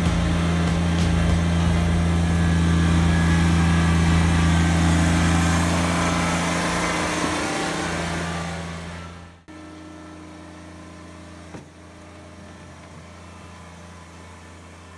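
Kubota BX23S sub-compact tractor's three-cylinder diesel running steadily, loud at first, then fading away over a couple of seconds and dropping out suddenly about nine seconds in. A much quieter steady engine hum follows, with a single click a couple of seconds later.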